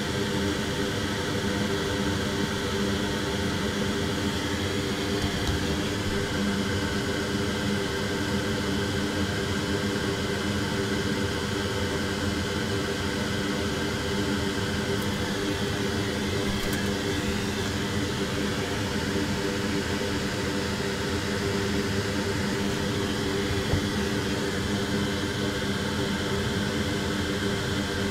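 Steady whir of an electric fan or blower, a constant motor hum with an airy hiss.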